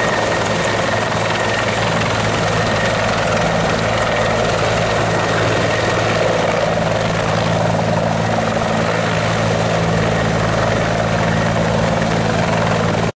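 Military helicopter's steady rotor and engine noise, unchanging throughout, cutting off abruptly near the end.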